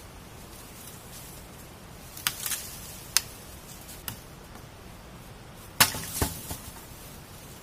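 Dry dead branches cracking and snapping as they are handled and broken: a handful of sharp cracks spread over several seconds, the loudest around six seconds in.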